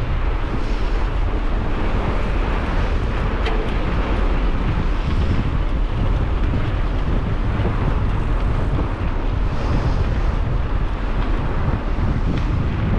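Wind buffeting a camera microphone in a steady, loud low rumble, with a couple of sharp clicks.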